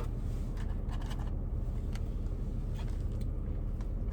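Idling car engine heard from inside the parked car's cabin, a steady low rumble, with a few faint clicks and rustles over it.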